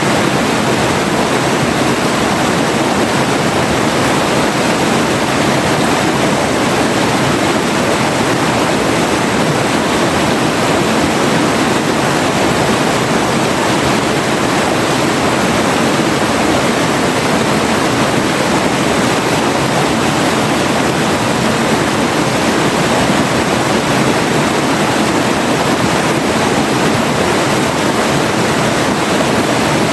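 Forest river flowing: a steady, unbroken rush of water.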